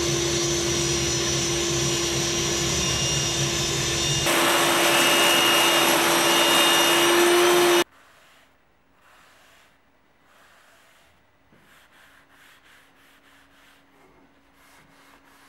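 Table saw running with a steady hum, growing louder about four seconds in and cutting off abruptly near eight seconds. After it, faint repeated rubbing strokes of a sponge applicator spreading teak oil on a wooden strip.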